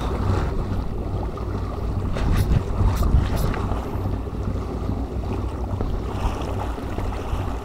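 Strong wind buffeting the microphone as a steady low rumble, with choppy sea water lapping below and a few faint short clicks around the middle.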